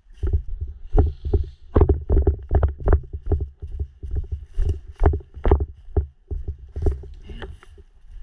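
Footsteps at a brisk walk, about three a second, each a dull thump with a rustle, close to the microphone.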